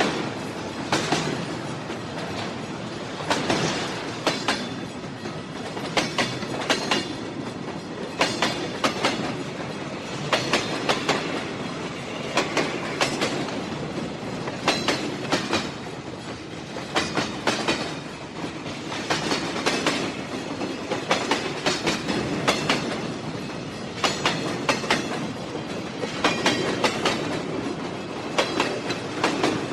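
Train wheels running over rail joints: a steady rumble with groups of sharp clickety-clack clicks every two seconds or so.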